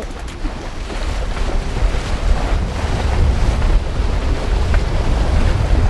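Wind buffeting the microphone aboard a boat under way, a steady low rumble with rushing sea water beneath.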